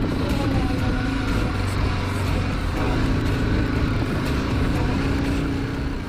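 BMW G 310 GS motorcycle's single-cylinder engine running steadily at low speed while riding a dirt track.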